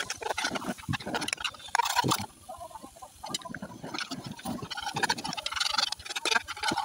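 Metal knife blade scraping and tapping against a frying pan while scrambled egg and tomato are stirred, in quick irregular scrapes and clicks.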